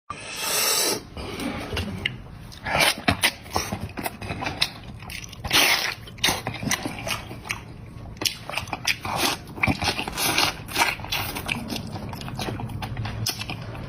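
Close-miked eating: a run of crunchy bites and chewing, irregular and crackling. It opens with a brief loud hiss in the first second.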